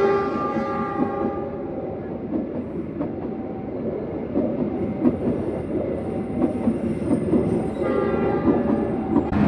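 Passing train with its wheels clattering over the rails. Its horn sounds at the start and stops about a second and a half in, then sounds again for about a second and a half near the end.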